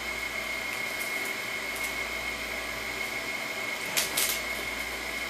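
Cardboard packaging being worked open by hand over a steady background hiss with a thin high whine. A short crackle of handled packaging comes about four seconds in.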